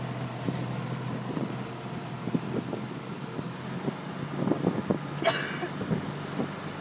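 Motorboat engine running steadily while towing a tube, over a rush of wind. A brief high-pitched squeal about five seconds in.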